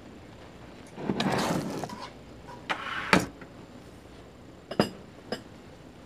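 Tableware noise at a meal: utensils scraping and clicking against a frying pan and bowls. Two short noisy scrapes, the second ending in a sharp clack, then two light clicks near the end.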